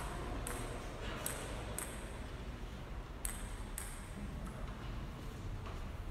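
Table tennis rally: the celluloid ball clicking sharply off the rackets and the table, the hits coming in pairs about half a second apart, fainter toward the end.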